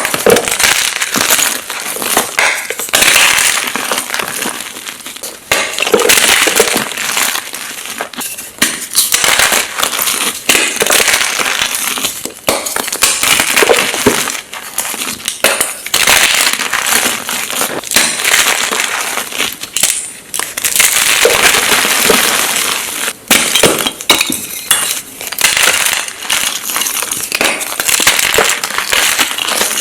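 Blocks of gym chalk (magnesium carbonate) being crushed and crumbled, a dense run of crunchy crackling and clinking that comes in waves with short pauses.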